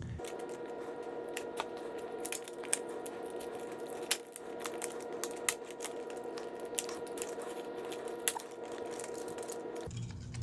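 Knife packaging being opened and handled: scattered sharp clicks and light crinkles of box and plastic parts. Under them runs a steady hum of several pitches, which begins and ends abruptly.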